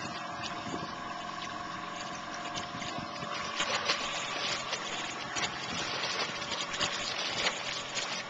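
Boat's motor running steadily with a constant whine, while water splashes and slaps repeatedly as a dogfish thrashes at the surface beside the hull, the splashing busier in the second half.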